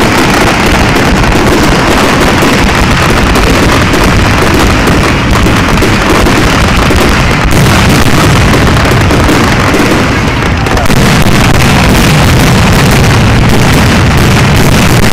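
Fireworks finale barrage: aerial shells and fountains going off so densely that the booms and bangs run together into one unbroken, very loud roll of explosions.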